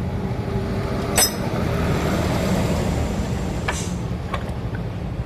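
A few sharp metallic clinks of tools and scooter CVT parts being handled, over a steady low rumble that swells briefly in the middle.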